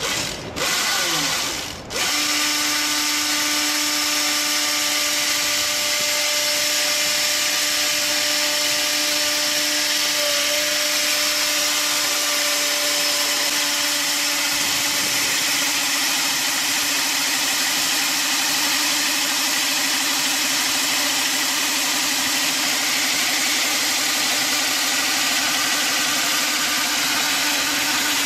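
Wheeled log-cutting chainsaw rig with an electric motor, its long vertical bar cross-cutting down through a large log. It is uneven for the first couple of seconds, then runs with a steady, even whine as the chain cuts through the wood.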